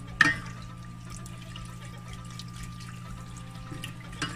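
A wooden spoon stirring a thin flour-and-water mixture in a stainless steel saucepan, with liquid sloshing and the spoon scraping the pan, worked hard to keep lumps from forming. A sharp knock of the spoon against the pan comes just after the start, and a smaller one near the end, over a steady low hum.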